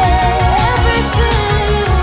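Background pop music with a steady beat and a wavering melody line.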